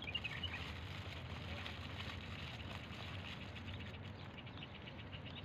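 Outdoor background noise: a steady low rumble, with a few short high chirps in the first half second.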